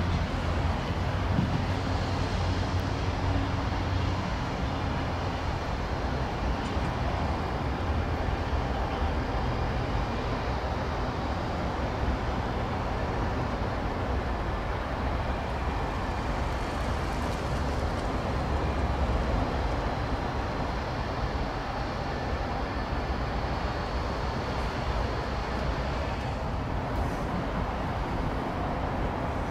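Steady low rumble of distant trains moving slowly through a rail yard, with no single event standing out.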